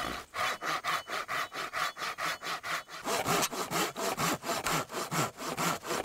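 Hand pruning saw cutting through a dead log in quick, even back-and-forth strokes, about five a second.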